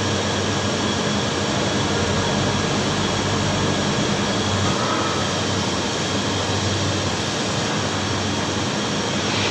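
Steady electrical hum and hiss from TIG welding equipment running, unchanging throughout.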